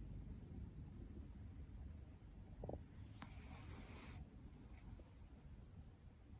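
Orange-and-white domestic cat snoring softly in deep sleep. One slow, breathy snore comes about halfway through, part of a rhythm of breaths about four seconds apart.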